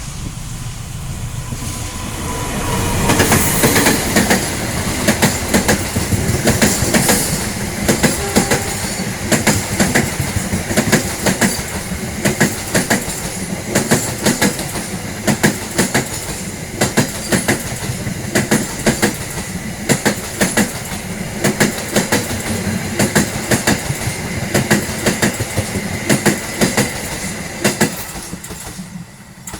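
A long passenger train passing close by, its wheels clacking over the rail joints in a steady, repeating rhythm. The train is loudest a few seconds in and fades as the last coaches go by near the end.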